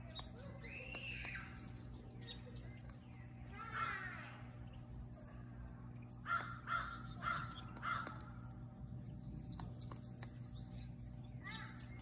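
Birds calling at intervals, with a cluster of short, sharp calls about six to eight seconds in, over a steady low hum.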